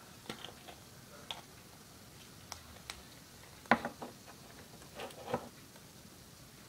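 A few scattered light clicks and taps of handling in a small room, the loudest a sharp tap a little past halfway, with a short cluster of softer ones near the end.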